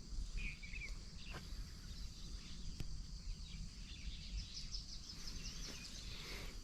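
Faint jungle ambience: a couple of short bird chirps about half a second in, then a high, steady insect-like trill that starts about two-thirds of the way through, over a low rumble.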